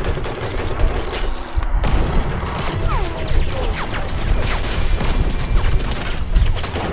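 Action-movie soundtrack playing on a screen: a dense run of bangs, crashes and gunfire-like booms, with music underneath.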